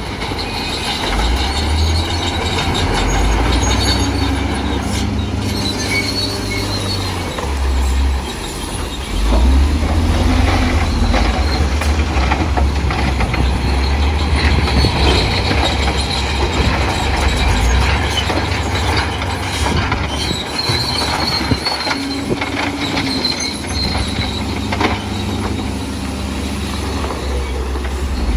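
Crawler bulldozer working: its diesel engine running under load, with the steel tracks squealing and clanking as it moves.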